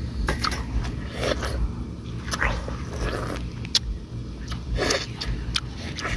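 A person biting into and chewing a slice of fresh watermelon close to the microphone: wet, crisp bites and mouth smacks at irregular intervals.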